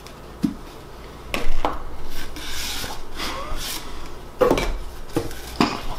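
Cardboard mailing tube being opened by hand: a few sharp clicks, then scraping and rubbing as the end cap is worked off, and several louder knocks on the tube near the end.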